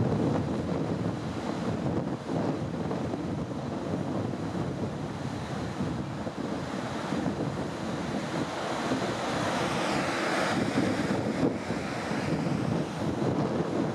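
Sea surf breaking and washing in over a rocky shore, with wind buffeting the microphone. The wash swells noticeably about ten seconds in.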